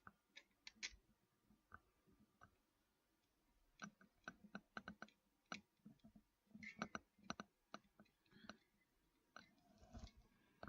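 Faint, scattered clicks and light taps of small metal screws and parts being handled while a PC is put together, coming in quick clusters about four and seven seconds in.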